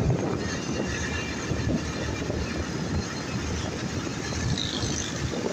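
Motorcycle being ridden along a road, heard from on the bike itself: a steady mix of engine and road noise.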